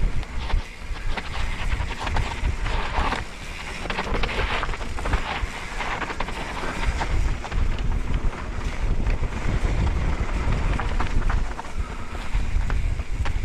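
Wind buffeting a helmet camera's microphone at speed on a mountain-bike descent, over tyres running on loose dirt and many small knocks and rattles from the bike. A louder gritty hiss of tyres in loose dirt rises about three seconds in and eases off around seven seconds.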